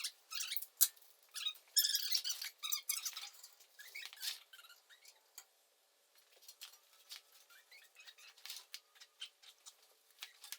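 Irregular short clicks, scrapes and a few brief squeaks, busiest in the first half and sparser later.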